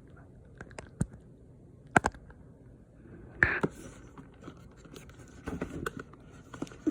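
Cardboard packaging being handled and pried at: a few sharp clicks and knocks, then scratching and scraping of cardboard near the end.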